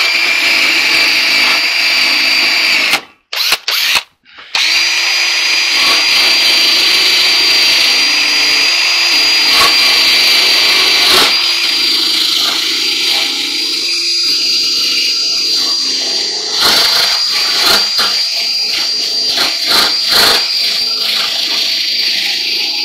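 Cordless drill running a wire wheel brush, scouring old felt and glue off the rim of a clothes dryer panel. The motor's steady whine cuts out twice, briefly, about three and four seconds in, then runs on with scratchy scraping from the wire wheel.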